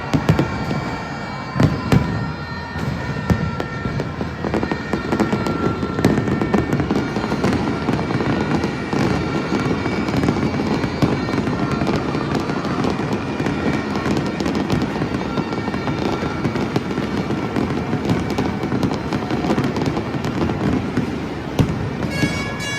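Fireworks display: a dense, continuous run of bangs and crackling from bursting shells over a steady rumble.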